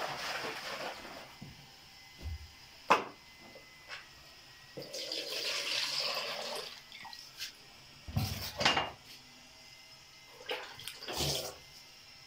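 Buttermilk pouring and splashing out of a clay churn into a plastic basin, in two spells, with a few sharp knocks and thumps of the pot and bowls in between.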